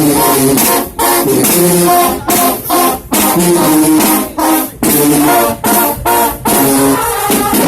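Marching band playing loudly in short, punchy phrases separated by brief breaks.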